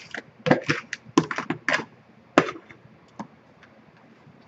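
A spoon scraping and tapping against plastic mixing bowls as a thick wet mixture is scraped out: a quick run of short knocks and scrapes, the last one the loudest, then a few faint clicks.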